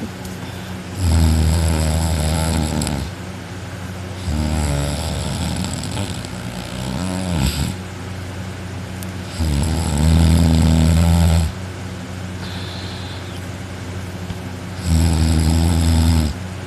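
A person sleeping on their back with mouth open, snoring extremely loudly: four long, rasping snores, each two to three seconds long, a few seconds apart. A steady low hum runs underneath.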